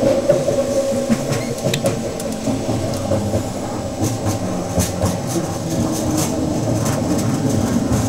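Detroit People Mover car, a linear-induction-motor automated train on steel wheels, running along its elevated guideway, heard from inside the car: a steady running rumble with scattered clicks from the wheels and rails.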